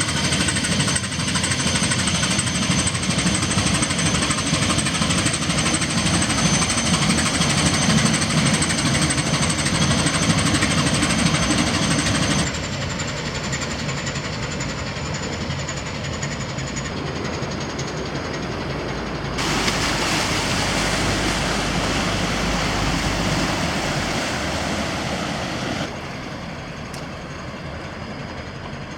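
An inland cargo ship's 1200 hp MaK diesel engine running with a rapid, steady knocking beat. The sound changes abruptly three times in loudness and tone, one stretch carrying a heavy low rumble.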